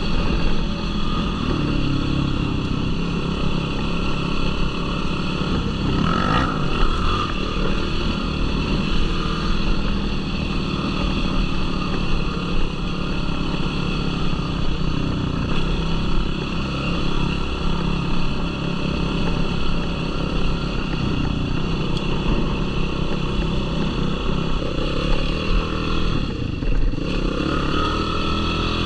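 Yamaha YFZ450R sport quad's single-cylinder four-stroke engine running steadily while riding dirt trails.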